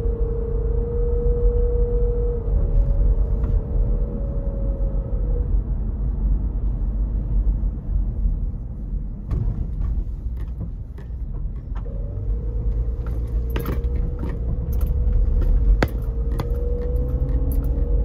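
Car cabin noise while driving: a low rumble from the tyres and engine with a steady whine over it. The whine and rumble ease off around the middle and build again, with scattered light clicks and rattles in the second half.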